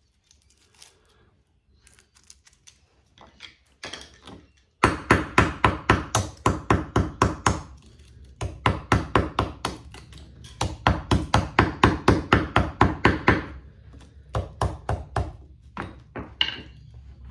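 Club hammer beating a light ballast's core on a brick to break it apart for its copper. Rapid blows of about three a second start about five seconds in and come in spurts with short breaks, after a few light clicks as the piece is handled.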